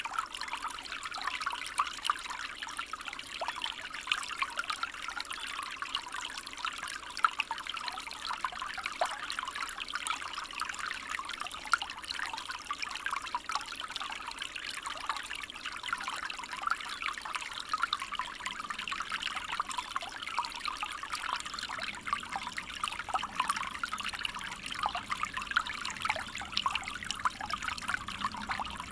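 Small stream of water running and babbling steadily, a dense trickling and splashing with no pauses.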